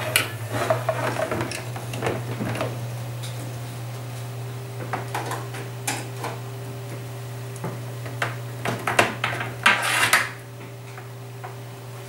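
Handling of USB cables and plugs: irregular rustles, taps and small plastic clicks as a USB plug is fitted into a port on a PC tower, with a louder rustle about ten seconds in. A steady low hum runs underneath.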